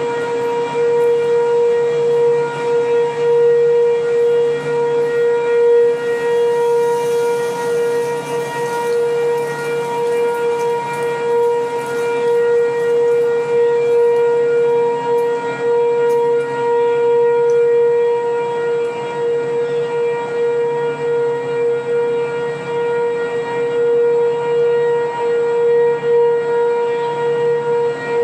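Sentry 3V8-H outdoor warning sirens with all-8-port rotors sounding a steady alert tone, several heard together from about a third of a mile away. The single pitch holds steady while the loudness swells and fades slowly.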